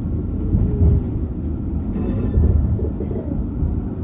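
Low, steady running rumble of a Croydon Tramlink tram, a Stadler Variobahn, heard from inside the car as it moves along the street, with a brief faint high whine about two seconds in.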